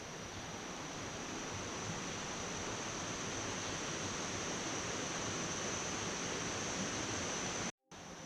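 Waterfall: a steady rush of falling water that grows slowly louder, then cuts off abruptly near the end.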